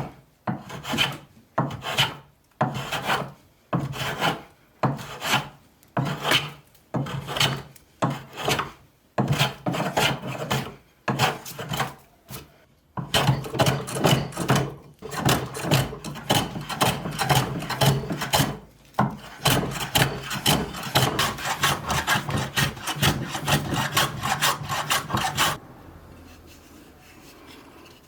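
Repeated back-and-forth strokes of an abrasive hand tool rubbing on an old handsaw: slow, separate strokes with short pauses at first, then a faster, steady run of strokes from about halfway, stopping a few seconds before the end.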